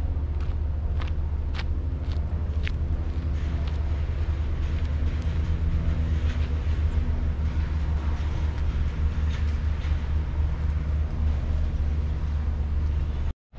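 Steady low rumble of vehicle engines with a faint pitched hum above it, and a few footsteps in the first few seconds. The sound drops out briefly just before the end.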